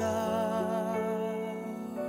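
Slow ballad music: a long note held with a wavering pitch over sustained lower notes.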